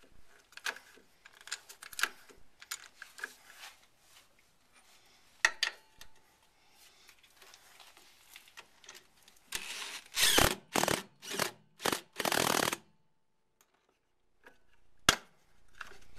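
One-handed trigger bar clamp being ratcheted tight with a quick run of trigger squeezes, each a short clicking rasp, about ten seconds in, drawing the strut's lower bracket onto the knuckle so the bolts line up. Lighter clicks and knocks come before this, as the clamp is fitted.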